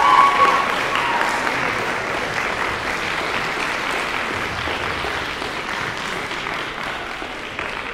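Audience applauding after a performance, a dense steady clapping that slowly dies down toward the end.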